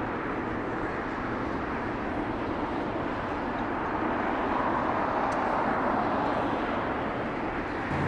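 Distant jet airliner engines, a steady rush that swells gently to a peak a little past the middle, then eases.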